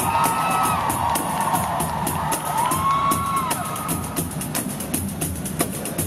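Ensemble of pandeiros played together in a fast, even rhythm of hand slaps and jingle rattles. The audience cheers, with two long whoops over the drumming, one at the start and one about halfway.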